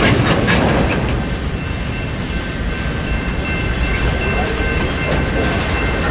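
Freight train rolling past at a level crossing: steady rumble of freight cars with steel wheels clacking over the rail joints, a few sharp clicks in the first second.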